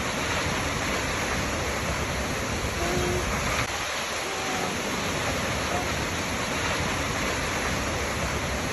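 Waterfall: a steady, even rush of falling water, with a few brief faint tones heard over it.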